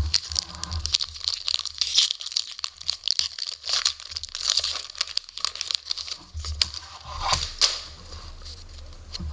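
Foil trading-card pack wrapper being torn open and crinkled by hand, a dense crackling rustle, with a few sharper rustles near the end as the cards are pulled out.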